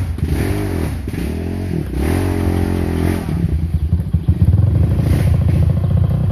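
Dirt bike engine revving up and down several times, then running harder and louder at a steadier pitch from about four seconds in.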